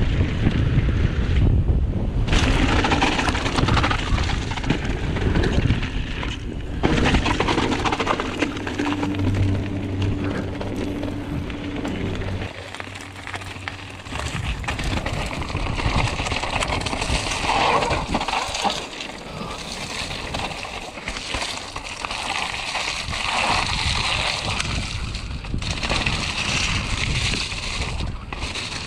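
Mountain bike riding fast downhill over gravel and rocks: tyres crunching on loose stones, the bike rattling over bumps, and wind buffeting the camera microphone. A low steady hum sounds for a few seconds in the middle.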